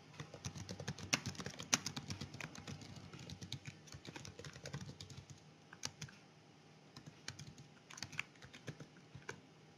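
Faint typing on a computer keyboard: a quick, steady run of key clicks that thins out after about four seconds into short scattered bursts of keystrokes.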